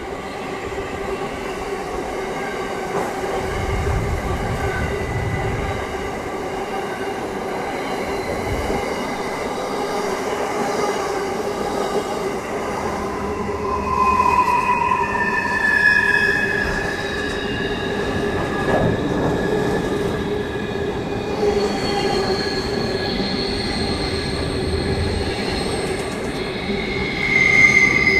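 Long freight train rolling past, its wagons rumbling steadily on the rails with a constant hum. From about halfway on, the wheels squeal in high, shifting tones.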